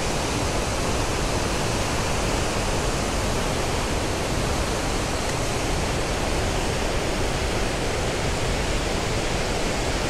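Middle Falls on the Genesee River, a large waterfall, rushing with a steady, unbroken noise of falling water.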